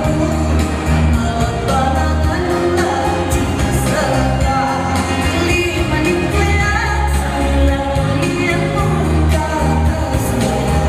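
A pop song playing, with a singing voice over a steady beat and heavy bass.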